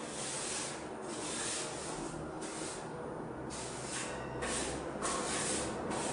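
Broom bristles swishing across a concrete floor in short repeated sweeping strokes, about one stroke a second.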